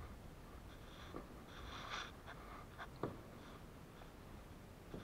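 Faint, muffled kayaking sounds: a kayak paddle stroke splashing water about two seconds in, with a few small knocks and clicks over a low rumble.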